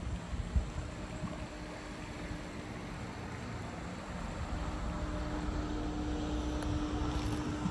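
Outdoor ambient noise with an engine hum that strengthens and gets louder in the second half.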